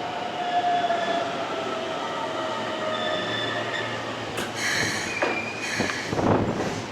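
Keisei electric train slowing at the platform, its motor whine falling gently in pitch, then wheels and brakes squealing in repeated bursts from about four seconds in.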